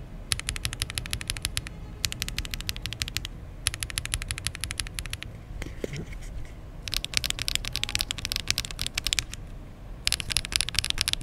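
Fast typing on a mechanical keyboard without case foam, in five quick bursts of rapid key clacks with short pauses between them. The keys carry a mix of ABS and PBT double-shot keycaps, typed to compare the sharper ABS sound with the deeper PBT sound.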